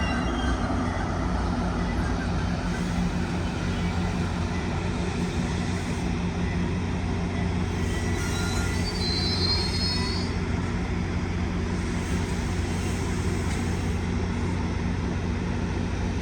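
MARC commuter train standing at the station with its locomotive running, giving a steady low hum. A brief, faint high squeal comes about halfway through.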